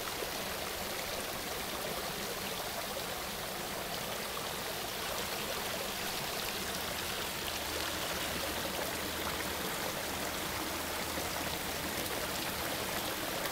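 Steady rushing of water as raw sewage wells up and spills over the rim of an overflowing sanitary sewer manhole into a full creek: a sanitary sewer overflow.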